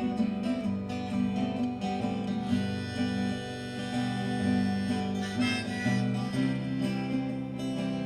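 Instrumental break of a country-folk song: acoustic guitar strumming chords while a harmonica plays held melody notes.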